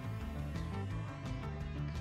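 Background music with a steady beat over sustained notes.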